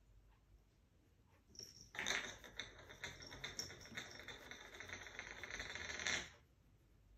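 Cats scrambling and pouncing after a laser dot on a marble floor: a dense run of clicking, clattering and scraping on the hard tiles, starting about two seconds in and stopping suddenly about four seconds later.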